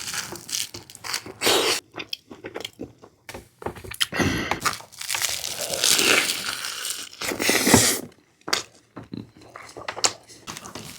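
Close-miked chewing and biting of breakfast food, in irregular wet and crunchy bursts with short pauses between.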